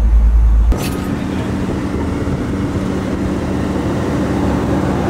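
Excavator's diesel engine running steadily, heard from inside the cab. Just under a second in, a heavy deep rumble breaks off abruptly with a click, and a steadier engine hum with a pitched drone carries on.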